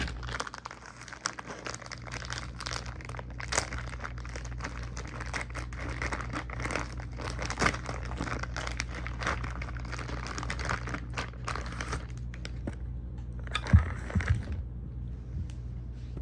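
Packaging of a front axle seal kit being opened by hand: dense crinkling and rustling for about twelve seconds, then quieter, with a single knock near the end. A steady low hum sits under it.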